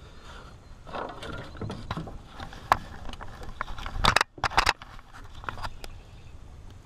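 Scattered clicks, scrapes and knocks from an angler shifting against an aluminum jon boat while lowering a largemouth bass over the side to release it. A louder cluster of sharp knocks comes about four seconds in.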